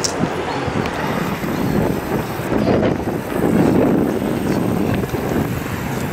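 Wind buffeting the microphone in uneven low gusts, over the wash of choppy sea water against the shore. A short click right at the start.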